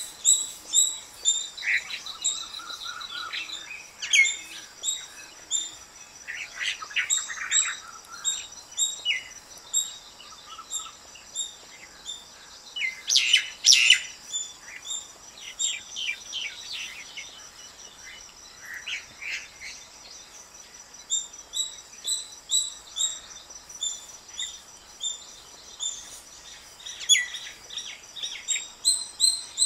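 Small birds chirping: many short, high calls scattered throughout, with a faint steady high pulsing trill running underneath.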